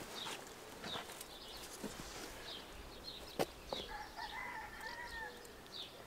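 A rooster crows once about four seconds in, a single drawn-out call lasting over a second. Small birds chirp repeatedly throughout, and there is one sharp click a little before the crow.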